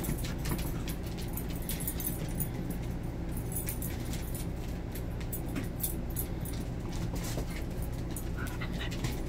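Puppies playing and scampering on a hard vinyl floor: many quick, irregular clicks and patters of claws, over a steady low hum.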